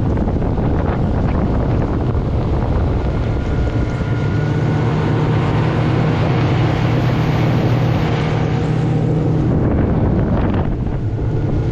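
Heavy wind buffeting the microphone over a boat motor running steadily, its hum most prominent between about four and nine seconds in.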